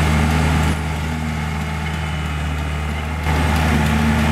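Aquatic weed harvester's engine running with a steady low drone. It drops quieter about a second in and comes back up shortly before the end.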